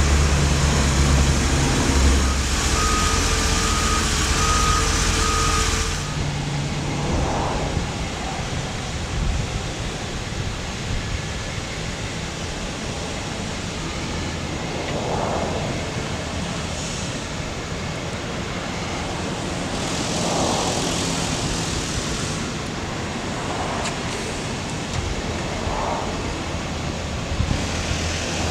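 GMC C5500 bucket truck's engine running, with a repeating electronic beep over the first few seconds. After an abrupt change about six seconds in, a quieter steady engine hum with outdoor noise continues while the aerial boom is raised, broken by a few brief swells.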